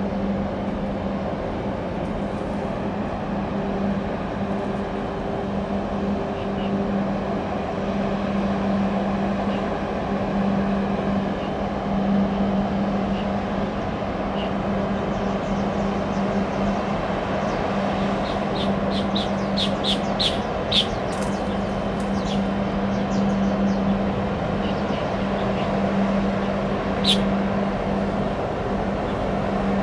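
Steady engine drone with a constant low hum over an even rush of noise. Small birds chirp in quick runs about two-thirds of the way through, and once more near the end.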